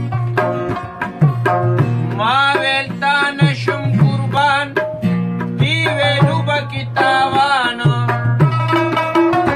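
A Pashto song: a man sings held, wavering notes in phrases from about two seconds in, over a steady drum rhythm and a sustained low drone.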